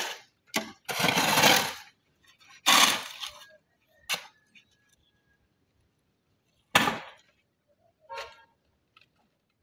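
Steel shovel scraping and scooping through sand, several separate rasping strokes with short pauses between them, and a sharp knock about seven seconds in.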